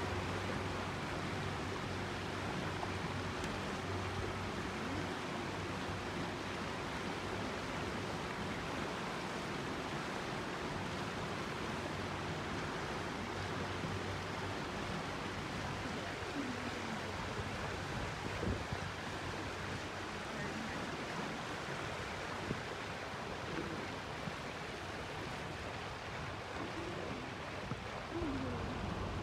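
Steady rush of water and air from a small boat cruising along a canal, with a low hum that fades out about halfway through.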